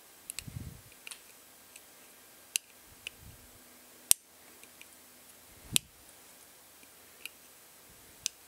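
Side cutters clipping off thick diode leads on a kit circuit board: about eight sharp snaps at irregular intervals, the loudest about four seconds in, with a few dull low thumps mixed in.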